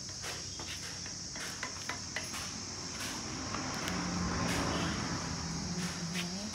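Crickets chirping steadily in a continuous high trill, with scattered light clicks and knocks. A low steady hum comes in about four seconds in and rises just before the end.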